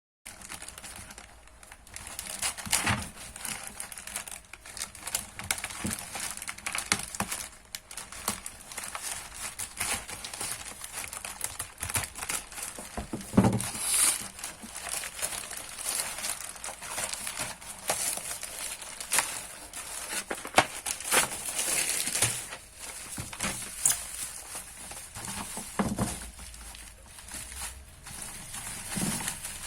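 Packaging being handled and unwrapped: irregular crinkling, rustling and tearing, with scattered clicks and knocks.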